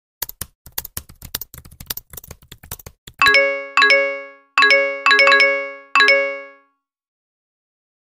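Laptop keyboard keys clicking quickly for about three seconds, then six bright chime dings in quick succession, each ringing briefly and fading: a burst of message-notification sounds.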